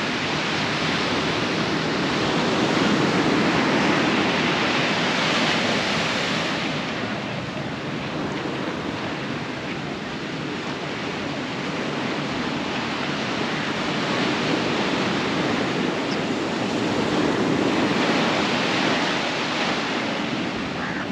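Sea surf breaking on the shore: a steady wash of waves that swells louder twice and eases off between.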